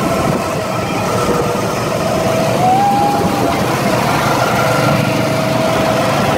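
Go-kart engines, small single-cylinder petrol engines, running steadily as the karts drive the track, with the pitch rising briefly about two and a half seconds in as one speeds up, then settling again.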